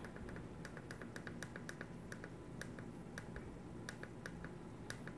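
Temperature-control buttons on a Saladmaster electric oil-core skillet being pressed over and over, about twenty quick, faint clicks at roughly four a second, as the set temperature is stepped down to 250°F.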